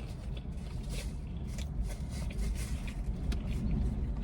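Close-up chewing and mouth clicks of someone eating buffalo chicken wings, over a low, steady rumble like a car cabin with the engine running.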